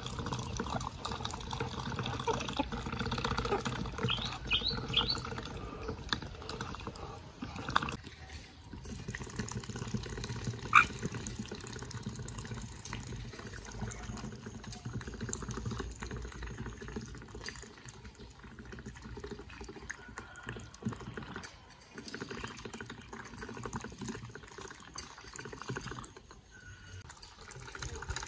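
Muscovy ducks dabbling and slurping water from a shallow PVC-pipe drinking trough, with uneven splashing. There are a few short high calls, a cluster about four seconds in and one near eleven seconds.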